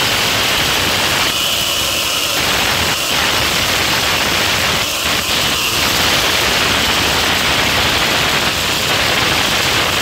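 Consul 7.5 kg top-loading washing machine running with a very loud, steady scraping noise, the fault the repairer is trying to find.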